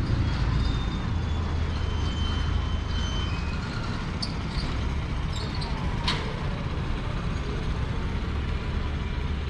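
Street ambience dominated by a steady low engine rumble from motor traffic. Two sharp clicks come about four and six seconds in, and a faint thin whistle about two seconds in.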